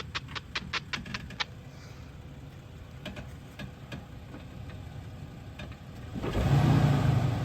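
Off-road vehicle's engine running low and steady while it crawls over a rock obstacle, swelling louder about six seconds in as it pulls forward. A quick run of sharp clicks or rattles in the first second and a half.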